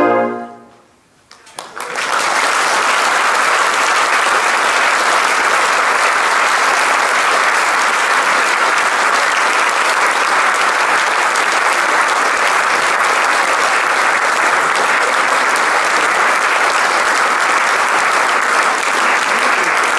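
A brass band's final held chord cuts off and rings away at the start, then after a brief lull an audience breaks into steady applause that keeps going to the end.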